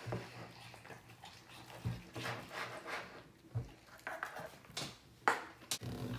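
Wet, freshly borax-activated slime squelching and clicking as it is kneaded and stretched by hand, in irregular short squishes with a sharper snap about five seconds in; the slime is still slimy and soapy.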